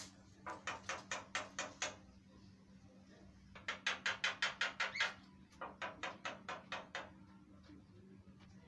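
Caged Javan myna (jalak kebo) in full song, giving rapid runs of sharp, harsh repeated notes, about seven a second, in three bouts, the middle one loudest.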